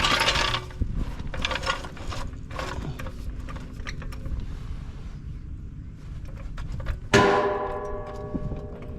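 Metal tools and parts clicking and clanking, then a hard metal strike about seven seconds in that rings on with several tones as it fades.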